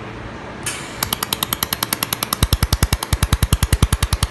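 Handheld laser welding machine firing in a fast, even pulse train of about eleven pulses a second, each with a sharp high tick; from about halfway a deep thump comes with every pulse.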